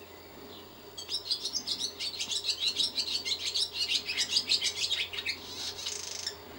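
Barn swallow singing: a fast, twittering run of high chirps beginning about a second in and ending in a short buzzy rattle just before it stops.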